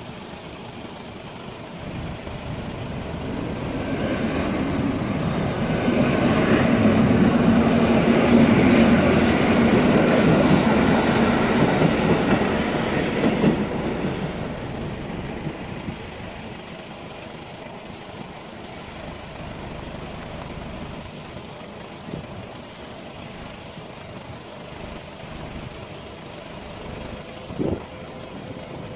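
Regional electric passenger train passing over a level crossing. Its noise builds over a few seconds, stays loud for about seven seconds with wheels clacking over the rails, then fades away. Afterwards car engines idle at the closed barriers, and there is a short sharp knock near the end.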